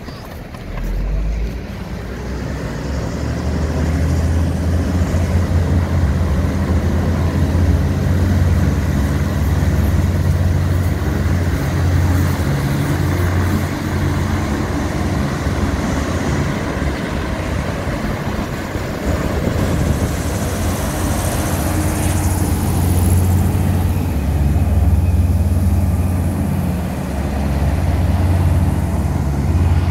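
A passenger hovercraft's engines and two large ducted propellers running, a loud deep drone that builds over the first few seconds and then holds steady as the craft departs.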